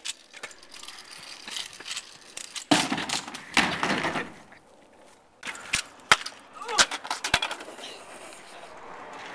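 Kick scooter wipeouts: a burst of clatter about three seconds in as a rider crashes into plastic wheeled trash bins, then several sharp clicks and knocks of the metal scooter hitting the pavement. Brief voices are heard.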